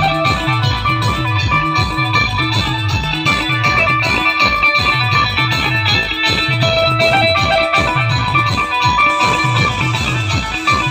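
Timli band playing an instrumental tune: a plucked-string, guitar-like lead melody over a stepping bass line and a fast, steady drum beat.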